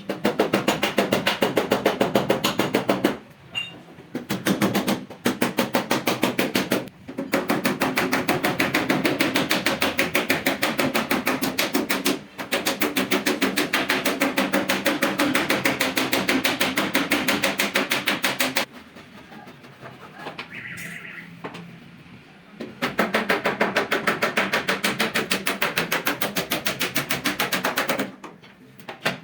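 Rapid, evenly spaced knocking in long runs, stopping briefly and restarting several times, with a longer pause in the latter half.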